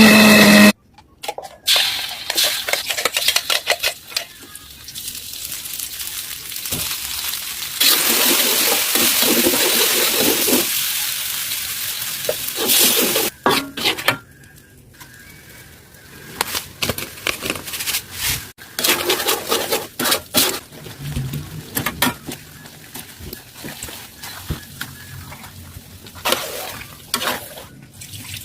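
Cooking sounds: utensils and dishes clinking and clattering, with a steady hiss for about four seconds starting around eight seconds in.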